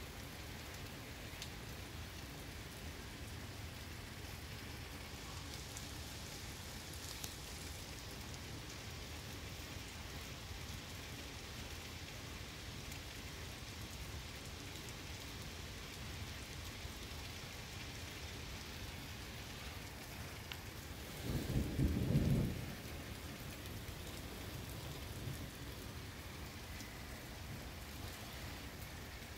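Heavy rain falling steadily, with one short, low clap and rumble of thunder about two-thirds of the way through, the loudest sound.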